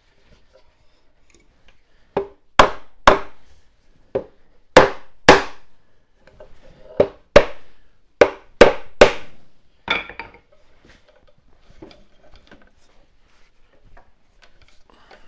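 Sharp knocks on wood, about a dozen blows over some seven seconds, often in quick pairs: the glued joints of a wooden dining chair being driven home during reassembly. A short rustling scrape follows, then faint handling noise.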